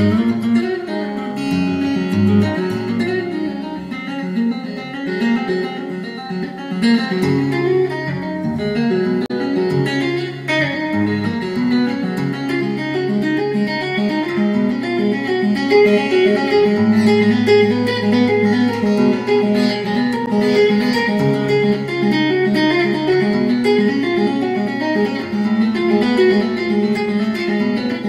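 Guitar music: a continuous plucked guitar piece, melody notes over lower held bass notes.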